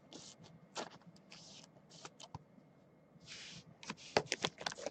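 Trading cards being handled and slid against one another, with short soft rustles and light clicks, the clicks coming thicker near the end.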